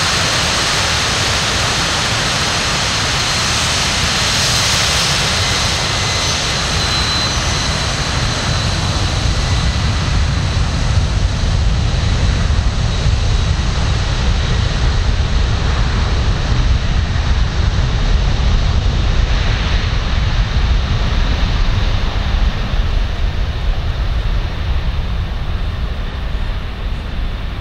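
Lockheed C-5M Super Galaxy's four turbofan engines running as the aircraft taxis: a high whine over a broad hiss that fades after the first several seconds, while a low rumble grows stronger.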